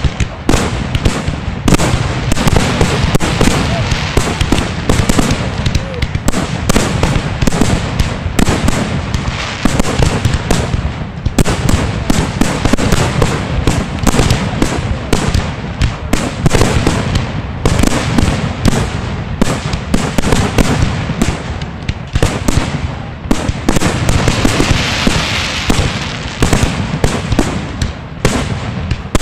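Aerial fireworks shells bursting at close range in a rapid barrage, loud booms following one another several times a second and overlapping without a pause.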